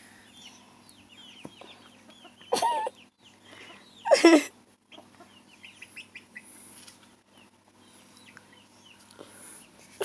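Chickens calling: a run of small high peeps throughout, and two louder wavering calls about two and a half and four seconds in, the second falling in pitch at its end.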